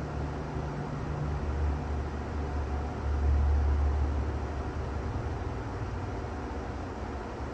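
Steady noise track with a deep rumbling low end, thinning out in the highs rather than an even hiss. The low rumble swells for about a second, around three seconds in.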